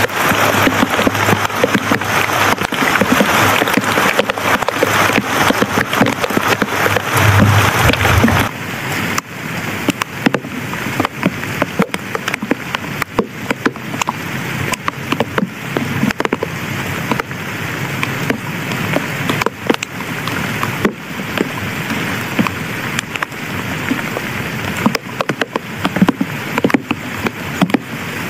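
Heavy rain falling on leaves and grass: a dense hiss with many single drops ticking through it. About eight seconds in it changes abruptly to a slightly quieter hiss in which the single drops stand out more.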